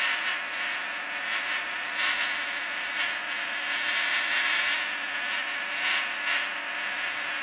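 ZVS-driven Tesla coil throwing a spark arc from its breakout ball: a loud, harsh, high-pitched crackling hiss that flickers irregularly. The coil is at low power, drawing about 3 amps.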